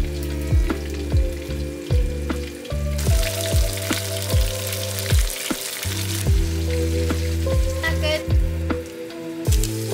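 Popcorn chicken pieces deep-frying in hot oil in a wok, with a steady fizzing sizzle. Background music with an even, steady beat plays underneath.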